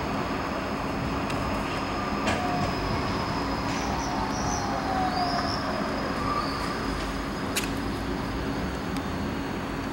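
Skoda low-floor tram coasting to a stop, its electric drive humming steadily while a whine falls slowly in pitch as it slows. A few sharp clicks and brief high squeaks come from the wheels on the rails.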